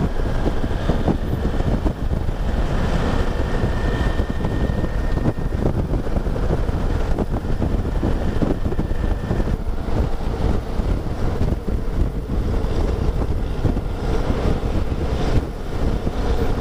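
Wind rushing over the microphone of a motorcycle cruising at highway speed, with the engine running steadily beneath it.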